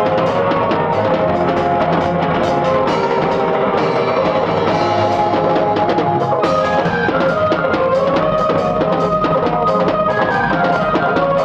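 Live Benin (Edo) band music: a steady drum and percussion beat under held melodic lines from the band's instruments, with no singing.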